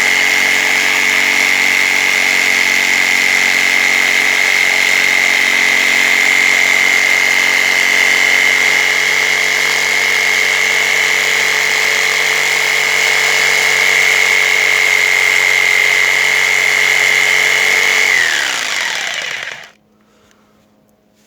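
Handheld electric power tool running loudly at a steady full speed while working the rotten tractor tire off the rim. Near the end it is switched off, and its pitch falls as the motor spins down to a stop.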